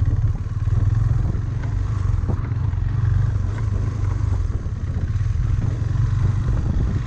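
Motorcycle engine running steadily at low speed over a rough dirt track, with a faint knock from the ride about two seconds in.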